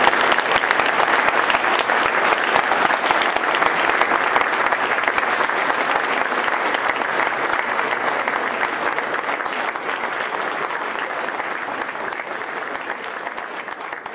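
Audience applauding, a dense round of clapping that slowly dies down toward the end.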